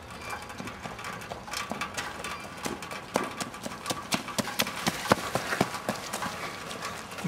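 Running footsteps on a dirt trail and then on pavement: a quick, uneven series of footfalls that grows louder and denser about halfway through.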